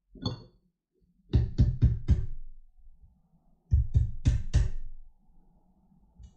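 Drum hits in two quick runs of four, about a quarter second apart, the second run a couple of seconds after the first.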